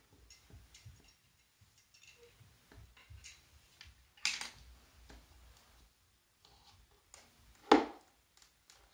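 Plastic dolls and toys handled on a tabletop: light clicks and taps, a sharper knock about four seconds in, and a louder knock near the end as a doll falls onto the table.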